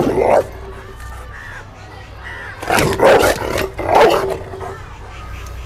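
Adult Rottweiler, muzzled, barking deeply: one bark right at the start, then a quick run of barks about three seconds in, the last trailing into a growl.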